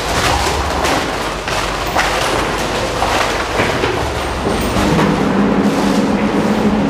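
Plastic cups crunching and rattling and tape tearing as several people wrench apart a costume made of cups taped together, a dense crackle of many sharp snaps and clatters. About four and a half seconds in, a low steady hum joins it.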